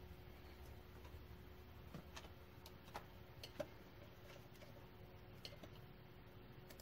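Faint, irregular clicks of a computer mouse's buttons and scroll wheel as the on-screen view is zoomed in and back out, the sharpest click about three and a half seconds in, over a faint steady hum.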